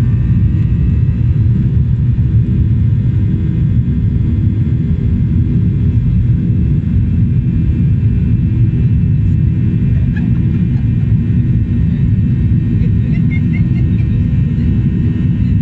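Boeing 737-800's CFM56-7B jet engines running with a steady low rumble and faint steady whining tones above it.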